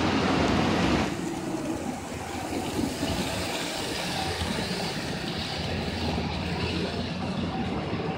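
H0-scale model trains running along the layout's tracks: a steady rolling noise that is louder for about the first second.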